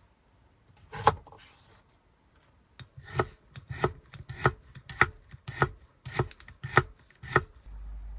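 A knife chopping food on a cutting board: one knock, then eight even chops at a steady pace of a little under two a second. A steady low hum starts near the end.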